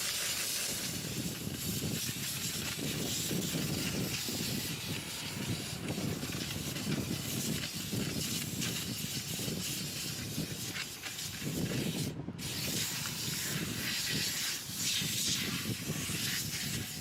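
Paint spray gun hissing steadily as paint is sprayed onto the bus body, with a short break about twelve seconds in.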